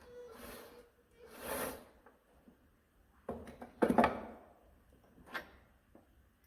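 Metal fittings and hand tools being handled while a nut and bolt are taken off the Bobcat's hydraulic ram: two short scraping slides, then a clatter of knocks about three seconds in and a single knock a couple of seconds later.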